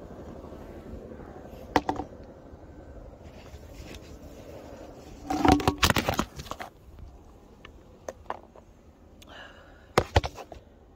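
Sharp knocks and scrapes from work at snowed-in beehives, in three bursts, the loudest a cluster about five to six seconds in. A low rumble under the first second or two fades out.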